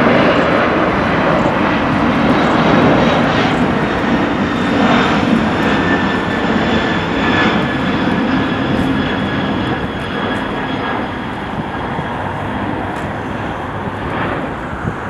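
Jet airliner's engines passing by: a steady rushing noise with a faint high whine in it, slowly fading.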